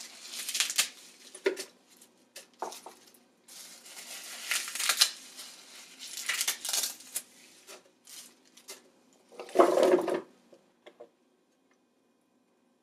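Fresh curly kale leaves rustling and crinkling as they are handled and packed into an empty plastic blender pitcher. About nine and a half seconds in comes a louder clatter as cut vegetable pieces drop in and knock against the pitcher.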